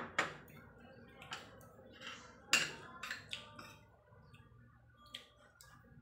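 Fork and spoon clinking and scraping on a patterned china plate while eating, a handful of short sharp clinks with the loudest about two and a half seconds in.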